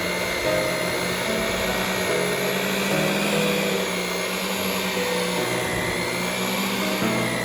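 Electric hand mixer running steadily, its beaters churning a thick cream cheese batter, with a high motor whine that wavers slightly as the load shifts.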